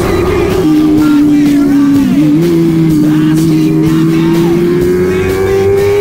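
Honda CBR600RR's inline-four engine running hard at high revs. Its note drops with an upshift about half a second in, then rises steadily as the bike pulls in gear.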